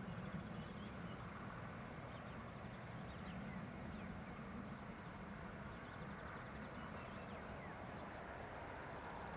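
Faint steady outdoor rumble, with a couple of faint short bird chirps about seven seconds in.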